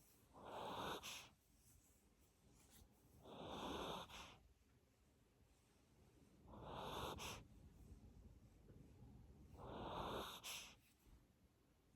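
Miniature Pinscher snoring faintly in her sleep: four slow, breathy snores, about one every three seconds.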